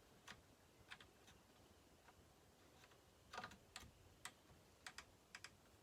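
Faint, irregular light clicks and taps of small parts being handled, about eight of them spread over a few seconds, against near-silent room tone.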